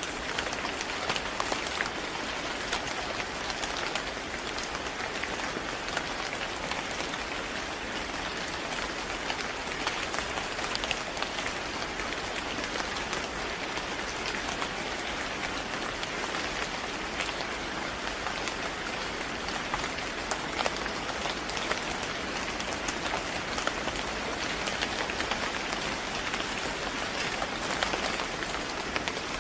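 Steady rain falling on a hard surface, a continuous hiss dotted with many small sharp drop ticks.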